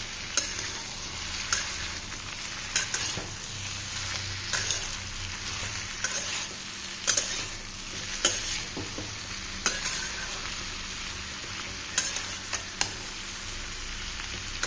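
Diced vegetables sizzling in oil in a metal wok while a metal spatula stirs them. The spatula scrapes and clicks against the pan about once a second over a steady frying hiss.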